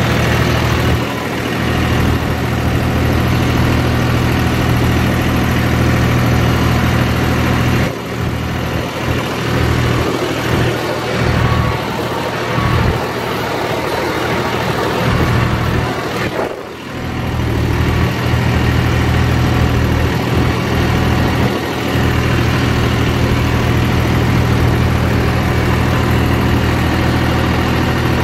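John Deere 5203 tractor's three-cylinder diesel engine running steadily while it drives a rotavator tilling soil, heard close up from the driver's seat. The sound drops briefly a few times around the middle, most sharply once.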